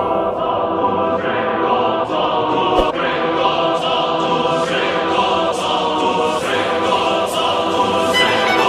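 Background music with a choir singing long held notes.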